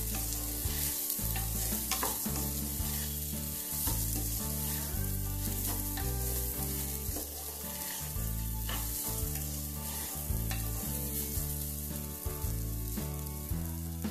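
Rice sizzling as it is toasted in hot ghee in a pressure cooker, with a wooden spatula scraping and stirring it around the pot. A background music bass line runs underneath.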